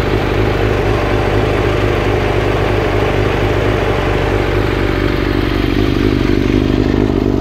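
Kawasaki ZX-6R's inline-four engine idling steadily in neutral at a constant, even pitch, with no revving.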